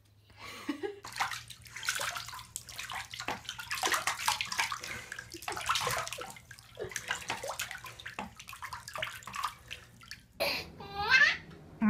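Water splashing and sloshing in a baby's bath, in irregular bursts. Near the end a baby's voice briefly comes in.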